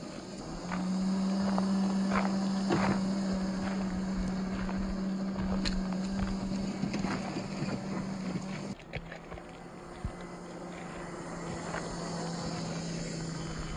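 Electric motor and gear drivetrain of a 1/10-scale RC crawler on an MST CFX chassis, running with a steady hum while it drives over gravel, with scattered clicks and crunches of small stones. About nine seconds in the sound cuts abruptly to a slightly lower, quieter hum.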